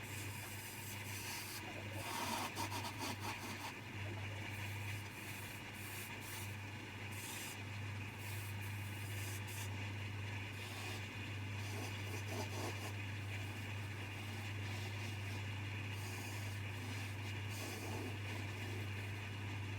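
Coronet 1 wood lathe running with a steady low motor hum, while a turning chisel scrapes and cuts intermittently against the spinning wood.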